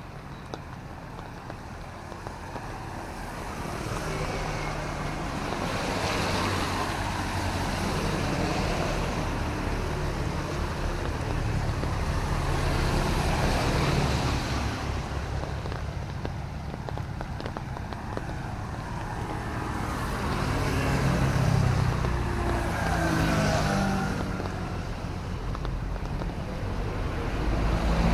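Several motor vehicles pass one after another on a wet road, their tyre hiss and engine hum swelling and fading. Another vehicle approaches near the end.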